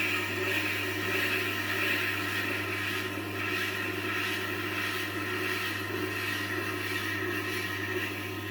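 Tormek T-8 wet sharpening machine running with a steady hum, a kitchen knife blade grinding against the turning wheel with an even, scratchy hiss.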